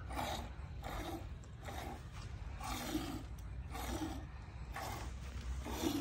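Hand-milking of a DDP goat: streams of milk squirted from the teat into a steel pot, each squirt hitting the frothy milk already in it, in a steady rhythm of about one to two squirts a second.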